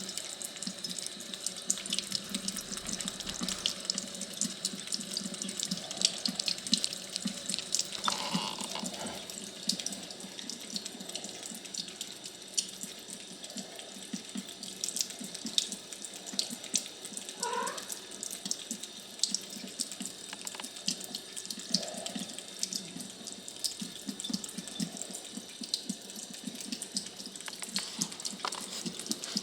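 Water running and splashing steadily, with dense small trickling clicks, and a couple of brief faint pitched sounds about 8 and 17 seconds in.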